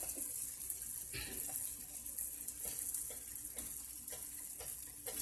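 Pancake batter frying in coconut oil in a pan, sizzling with a steady fine crackle. A few faint soft knocks come over it, the loudest about a second in.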